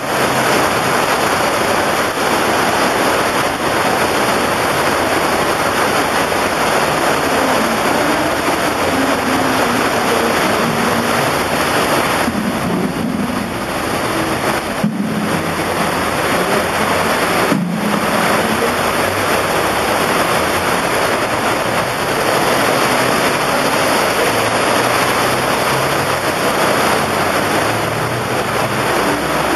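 Heavy streams of water gushing down from a roof into a flooded stone courtyard: a loud, steady rush of falling water. The water is pouring out of roof drains that had been blocked and were just opened.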